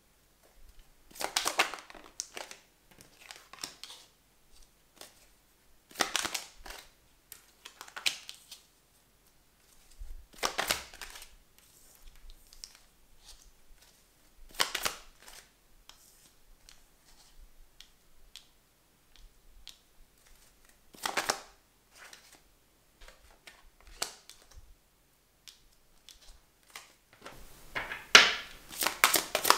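Cards being drawn from the deck and slid onto a smooth tabletop, one brief swish every few seconds. Near the end, a rapid run of flicking card sounds as the deck is handled or shuffled.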